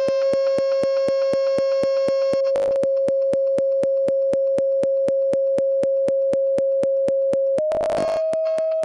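Computer-generated sine-wave tone from a LabVIEW sound-output program played through the sound card: a steady tone at about 540 Hz that steps up in pitch to about 640 Hz near the end as the frequency slider is moved. Regular clicks run through it about four times a second, with a short crackle about two and a half seconds in and another just before the pitch rise.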